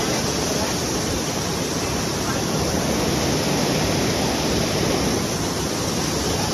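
Heavy rain pouring down steadily, an even, unbroken wash of noise.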